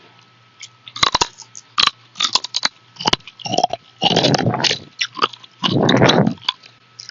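Crunchy food being bitten and chewed close to the microphone. It starts with a string of sharp crackles, then two louder, longer crunching spells.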